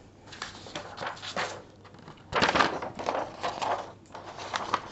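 Fingers brushing and rustling over a sheet of paper in irregular scrapes, loudest around the middle.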